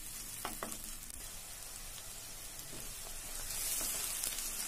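Chopped onions sizzling in hot oil while a wooden spatula stirs them around the pan. The onions are still pale, early in frying them until brown.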